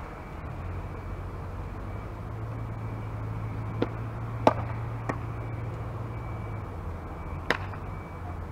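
A softball pitch smacking into a catcher's leather mitt with one sharp pop about halfway through, with a few fainter sharp clicks before and after it. A steady low hum runs underneath.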